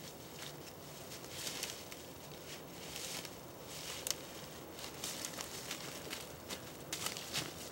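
Footsteps crunching and rustling through dry fallen leaves, in uneven steps.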